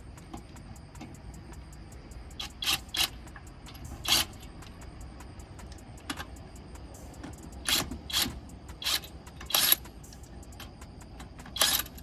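Metal hand tools clinking and rattling in short, sharp bursts, about eight of them at irregular intervals with pauses between.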